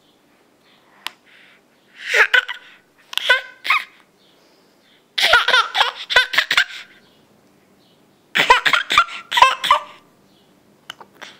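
Baby laughing with a plastic block in the mouth, in four short bursts of giggles, the longest in the middle.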